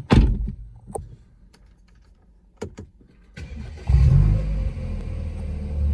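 A thump and a few clicks, then about four seconds in the BMW F30 328i's 2.0-litre turbocharged four-cylinder starts through its aftermarket Aura performance exhaust, flaring briefly and settling into a steady idle.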